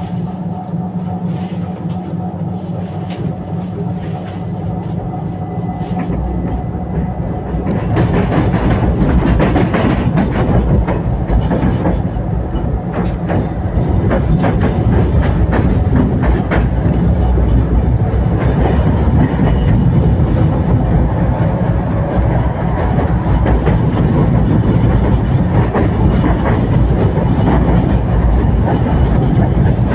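Tatra T3SU tram running on its rails, heard from on board. It starts with a steady hum over a lighter rumble. About eight seconds in it grows louder into a heavy rumble with frequent clicking and knocking of the wheels on the track.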